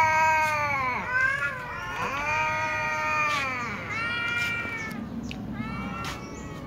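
Cats meowing at mealtime: a run of about five long, drawn-out meows one after another, begging to be fed, growing fainter toward the end.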